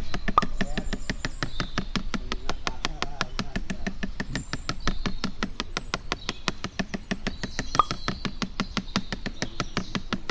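Rapid, even tapping, about five strikes a second: a coconut palm's flower stalk being beaten with a toddy tapper's mallet, the beating that coaxes the sap to flow.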